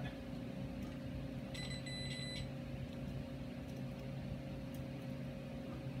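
A multimeter's continuity beeper gives one short, faint beep of under a second, about one and a half seconds in. It sounds when the energised starter solenoid closes its contacts, the sign of a working solenoid. A steady low hum runs underneath.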